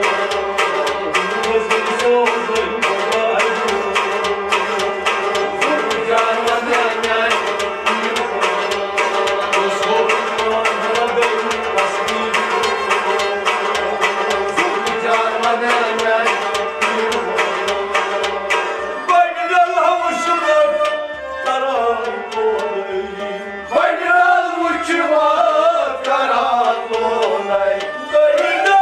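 A Kashmiri Sufi ensemble plays: harmonium, bowed sarangi, rabab and a goblet drum keep up a dense, fast rhythmic instrumental passage. About 19 seconds in the instruments thin out and a voice begins singing over them.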